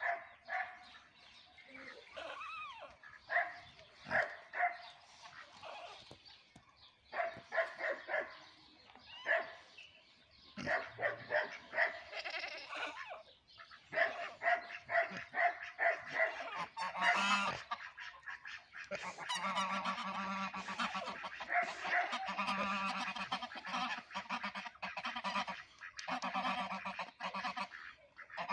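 Domestic geese honking in repeated short calls, building into a dense, nearly unbroken chorus of honks over the last third.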